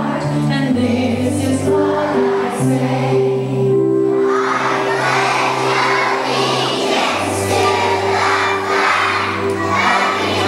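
A large group of schoolchildren singing a patriotic song together over a musical accompaniment with held bass notes.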